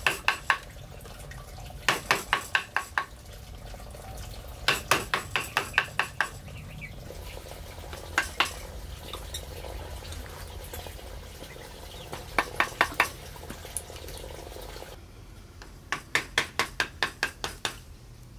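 Bursts of quick, sharp hard knocks, five to eight strikes at a time about five or six a second, recurring every two to four seconds over a low steady background rumble.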